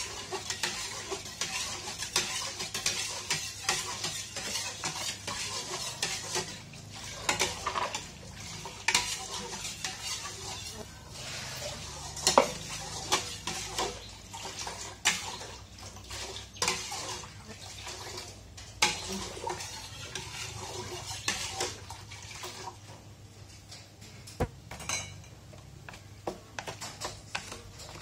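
Metal spoon stirring milk and sugar in a large metal cooking pot, scraping and clinking often against the pot's sides and bottom. The clinks come more sparsely in the last few seconds.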